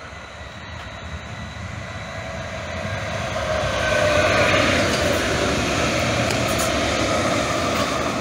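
Calgary Transit CTrain light-rail train passing close by on its tracks, growing louder over the first four seconds and staying loud as the cars go past.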